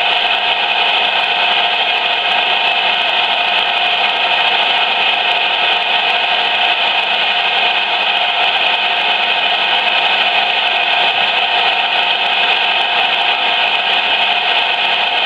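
CB radio speaker putting out loud, steady static hiss with a few faint steady tones running under it.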